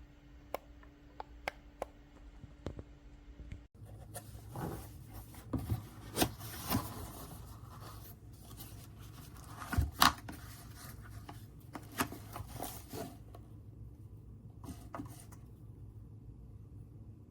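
Hands handling small objects at close range: a few light clicks, then, after an abrupt break, rubbing and scraping with scattered knocks and a loud sharp click about ten seconds in.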